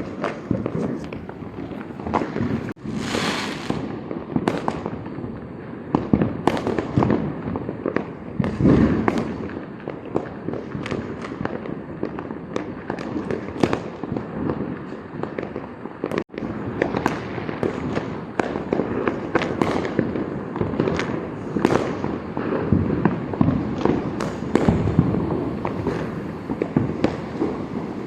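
Many firecrackers and fireworks going off at once, a dense, unbroken run of bangs and pops near and far, with a longer hiss a few seconds in.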